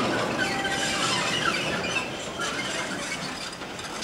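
Railway carriage wheels rolling round a curve, with a wavering flange squeal and grinding that is strongest in the first half and eases later.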